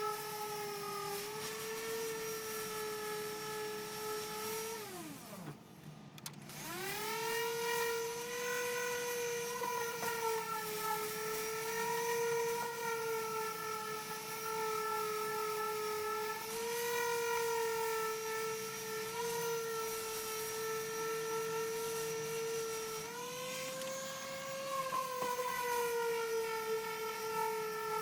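High-pitched whine of a power sander, of the kind used on auto bodywork, running at speed. About five seconds in it winds down to a stop, then spins back up a second later and runs steadily with small changes in speed.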